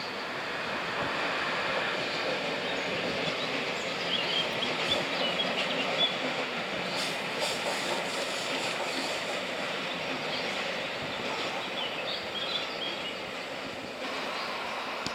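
Train running past on the track, a steady rush of wheels on rails with short high-pitched wheel squeals a few seconds in and again near the end.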